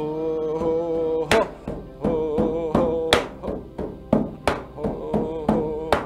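Large rawhide frame drum, the shamanic hand drum, beaten with a padded beater in a steady pulse of about three strokes a second, starting about a second in. Under the strokes runs a held, slightly wavering pitched tone.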